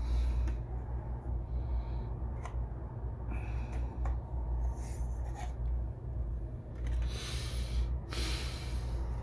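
Rustling and handling noises with a few light clicks over a steady low hum, and two longer hissing rustles near the end.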